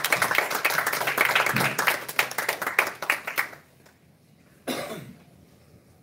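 Small audience applauding with hand claps, dying away about three and a half seconds in. A short vocal sound, like a cough, follows near the end.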